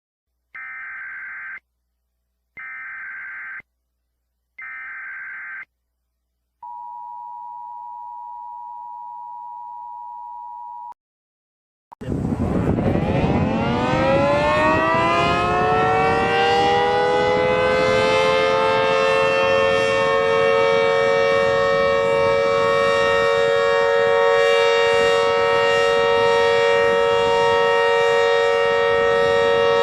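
Emergency Alert System alarm: three short bursts of the digital header data, then the two-tone attention signal held for about four seconds. After a brief gap, a civil defense siren winds up, its several tones rising in pitch over a few seconds, then holds a steady pitch at full volume.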